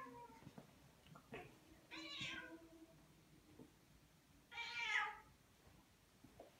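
Elderly domestic cat meowing: the end of one meow at the very start, then two more, about two seconds and four and a half seconds in, the last the loudest.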